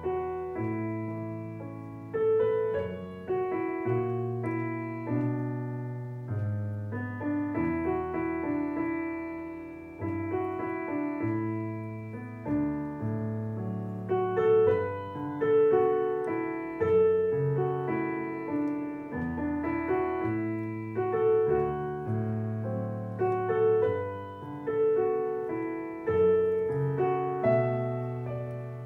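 Digital piano played with both hands: a melody with chords over low bass notes, each struck chord ringing and fading before the next.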